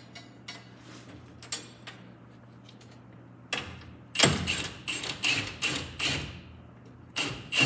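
Cordless impact wrench hammering on the threaded rod of a coil spring compressor, in a run of short loud bursts starting about halfway through and pausing briefly near the end, after a few faint clicks.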